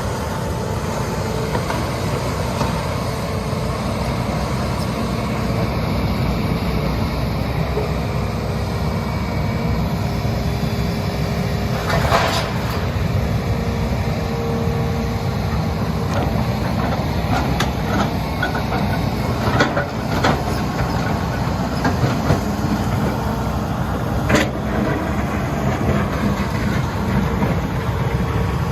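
Hitachi Zaxis 210 excavator's diesel engine running steadily under load with a faint hydraulic whine, broken by a few sharp knocks.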